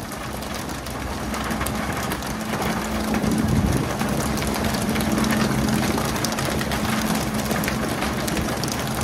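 Fishing boat's engine running steadily as a low hum, under a continuous hiss of water with scattered small clicks and taps.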